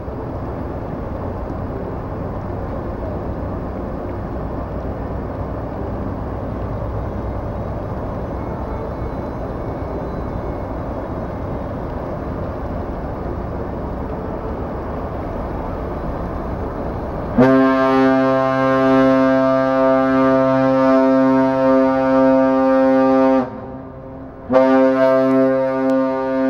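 Ship's whistle of the Hatakaze-class destroyer Shimakaze sounding its departure signal. After a steady rush of background noise, a loud horn blast starts suddenly about two-thirds of the way in and lasts about six seconds. A second blast begins about a second later.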